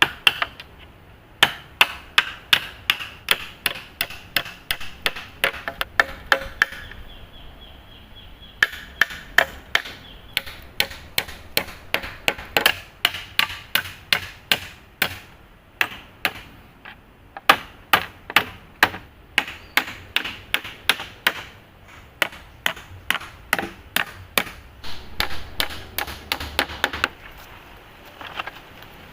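Wood being chopped with rapid, steady strokes, about three a second, each with a short ringing knock. The strokes come in three long bouts separated by brief pauses.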